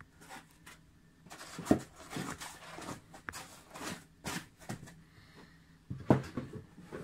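Foam packing insert and a cardboard eyepiece box being handled and closed: rustling and scraping, with a sharp knock a little under two seconds in and another about six seconds in.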